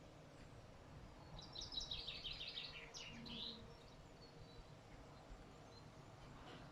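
A songbird singing one short phrase of rapid high chirps about a second and a half in, ending with a single note, over faint steady background noise.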